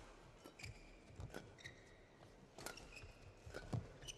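Badminton rally: rackets striking the shuttlecock in sharp cracks about a second apart, with short high squeaks of court shoes and footsteps on the court mat between the hits.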